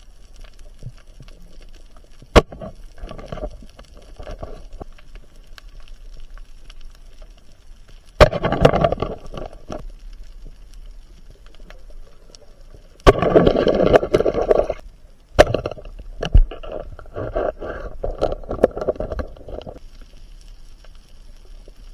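Muffled underwater sounds from a spearfishing dive: four sharp clicks or knocks. The second and third are each followed by a burst of rushing, bubbling noise lasting a second or more.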